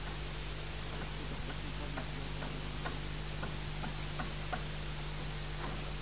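About ten faint, irregular knocks of hammering on a building site, over a steady hiss and low hum.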